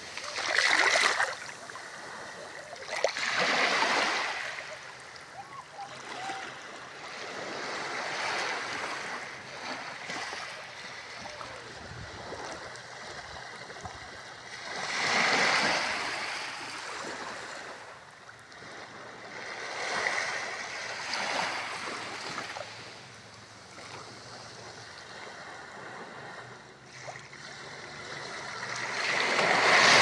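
Small waves washing up a sandy beach, a hiss of water that swells and fades about five times, the last surge the loudest.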